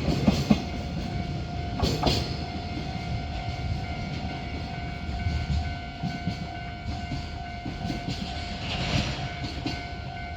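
Container freight wagons rolling past on the rails, with wheel knocks over rail joints in the first couple of seconds, then the rumble easing off. A level-crossing warning bell rings steadily throughout.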